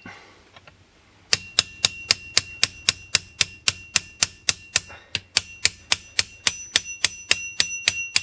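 Quick light hammer taps on a small chisel, about four a second with a short metallic ring to each, driving a chainsaw's clutch round to screw it onto the crankshaft thread. The tapping starts about a second in. The thread is surprisingly tight.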